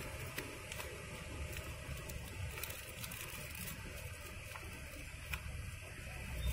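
Paper rustling and crackling in short, irregular clicks as a glued paper envelope is handled and pried open by hand, over a steady low rumble.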